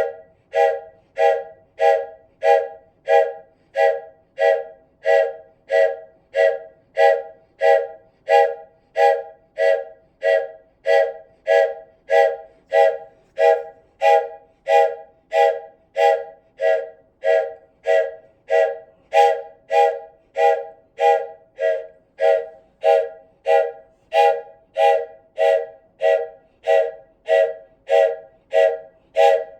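Wooden train whistle blown in short, evenly spaced blasts, about three every two seconds. Each blast sounds a chord of several tones with a breathy start.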